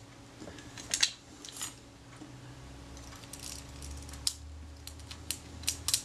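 Scattered small clicks and ticks, about a dozen, irregularly spaced, as the film-transport parts of a Kodak Retina IIIS camera body are handled and worked with tweezers.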